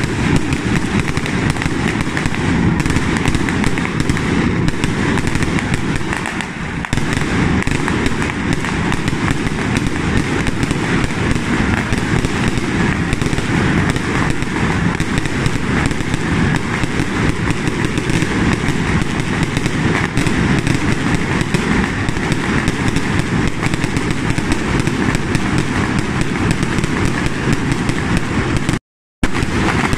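A dense, continuous barrage of firecrackers and fireworks, a rapid unbroken crackle of bangs with aerial shells bursting overhead. It cuts out for a moment near the end.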